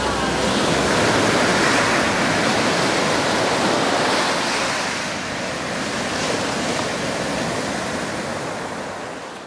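Ocean surf breaking and washing up a sandy beach: a steady rush of waves and foam, fading out near the end.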